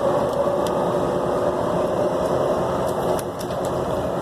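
Steady running noise inside a MAX light rail car: a low rumble with an even hum, and a few faint clicks.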